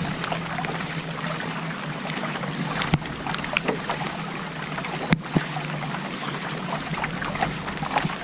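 Steady rain pattering around a kayak on the water, with scattered drips and splashes and two sharp clicks, about three and five seconds in.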